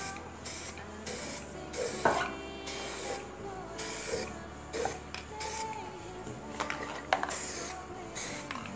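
Aerosol spray-paint can hissing in short bursts, about one a second, as paint is sprayed onto a cement vase. Two sharp clicks stand out, one about two seconds in and one about seven seconds in.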